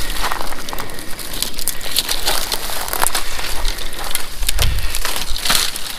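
Dry grass and twigs crackling and popping in a small, freshly lit campfire, dense irregular snaps, with sticks being broken and fed into the flames.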